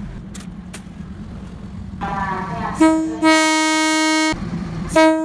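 Diesel passenger train's horn sounding three steady, pitched blasts, short, long (about a second), short, over a low running-engine rumble: the warning a train gives as it arrives to clear people off the tracks.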